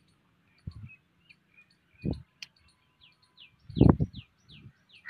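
Small birds chirping in short, quick falling chirps, several a second. Three low thumps are heard as well, the loudest about four seconds in.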